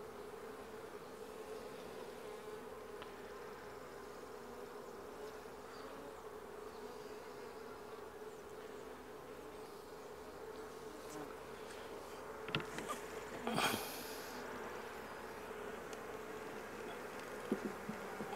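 Honey bees from an opened hive buzzing in a steady hum. A few sharp knocks and a brief scrape past the middle and a couple more near the end, from wooden hive frames being handled.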